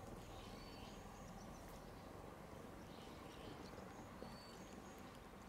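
Faint outdoor background noise, a low steady hiss, with two brief high chirps, one about a second in and one about four seconds in.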